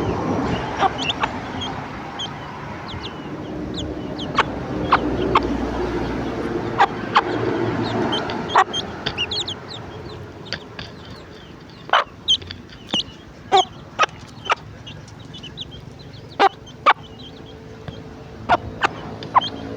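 A mother hen clucking to her chicks at feeding time, with short high chick peeps and scattered sharp clicks. The clucking is fuller in the first half and fades after about ten seconds, while the clicks carry on and are the loudest moments later on.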